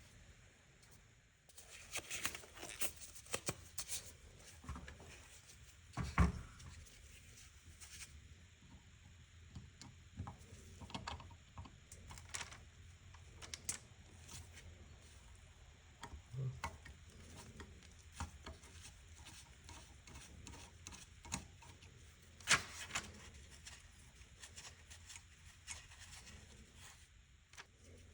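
Scattered light clicks, taps and knocks of hand tools and small parts being handled during work on a motorcycle carburetor, with a sharper knock about six seconds in and another a little past twenty-two seconds.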